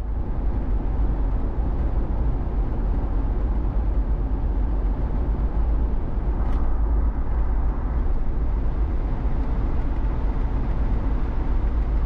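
Steady road noise of a vehicle travelling at highway speed: an even, deep rumble of tyres and engine.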